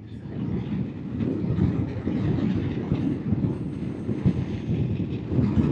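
Royal Enfield Himalayan motorcycle riding along at a steady pace: a rough, uneven rumble of engine and passing air with no clear pitch.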